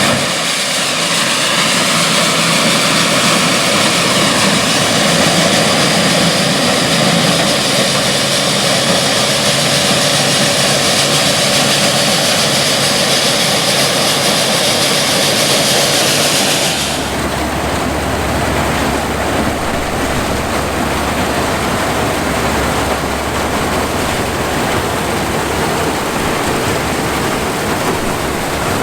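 Classic combine harvester running in corn, its engine and threshing machinery making a loud, steady mechanical noise. About 17 seconds in the sound changes abruptly, losing its high hiss and taking on a deeper rumble.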